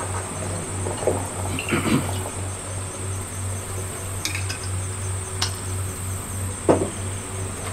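Steady high-pitched chorus of insects over a steady low hum, with a few short clicks and knocks of gear being handled on a table, the loudest knock near the end.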